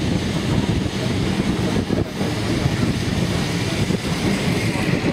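Heritage tram running along the track, heard from on board: a steady rumble of the wheels on the rails and the car's running gear.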